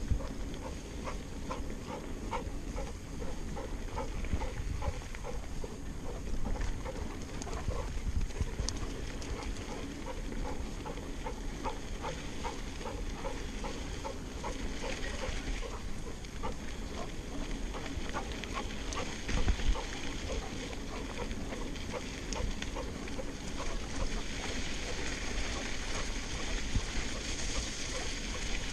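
Mountain bike rolling along a dirt trail, a steady rush of tyre and wind noise, with quick rhythmic panting at about three breaths a second, clearest in the first half.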